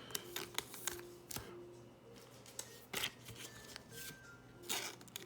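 Trading cards and card packs being handled by hand: a string of light rustles and clicks as cards are shuffled and moved about.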